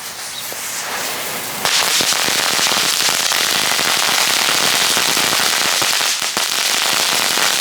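Crackling-ball novelty fireworks crackling in a dense, rapid stream of tiny pops. It grows much louder about a second and a half in, as the fused batch catches from the single one.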